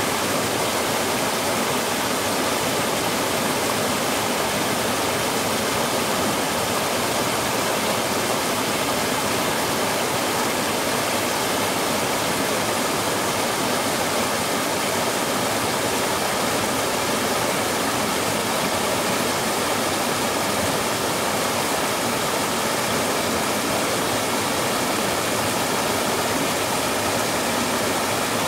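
Small waterfall in a stream: water pouring steadily over a drop and foaming as it falls, a constant full rush with no change.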